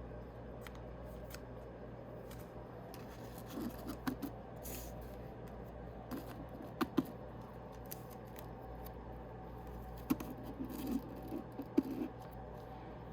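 Yu-Gi-Oh! booster packs and cards being handled, in three short bursts of rustling and clicks over a steady low hum.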